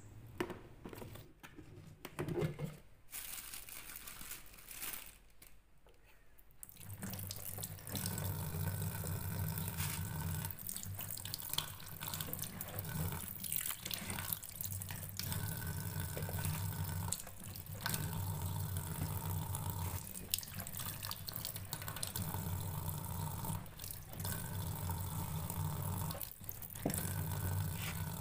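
Water running from a kitchen tap into a sink, starting about seven seconds in and running steadily from then on, with a few light knocks and handling sounds before it starts.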